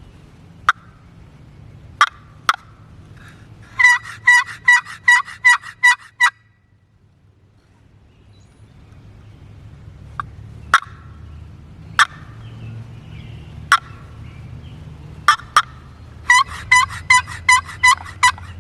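Turkey yelping: two runs of about nine evenly spaced yelps, about four a second, with single sharp clucks scattered between them.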